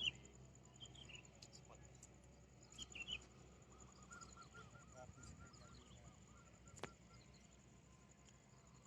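Faint outdoor ambience with distant bird calls: short chirps at the start and about three seconds in, then a quick run of about a dozen repeated arching notes between four and six and a half seconds, and a single sharp click near seven seconds.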